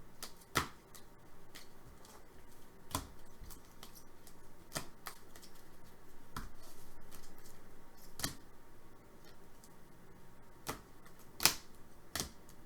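Sharp clicks and taps of trading cards being handled and set down on a table, one every second or two, irregular, with a louder cluster near the end.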